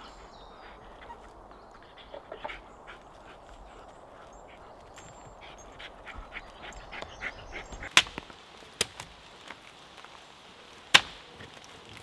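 Two dogs playing together on dry leaf litter and wood chips, followed by a few sharp knocks, the loudest near the end.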